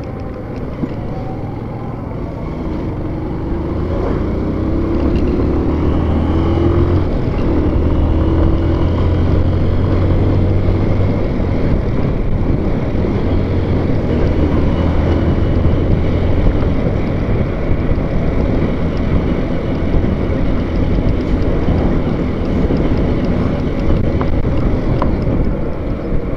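A vehicle on the move: a steady low engine hum under road and wind noise, growing louder about three seconds in, with a brief rising engine note soon after.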